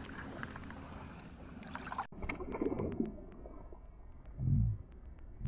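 Water sloshing and splashing as a hand releases a small sunfish into shallow water, with a short, louder low slosh about four and a half seconds in. The first two seconds hold a faint hiss that cuts off suddenly.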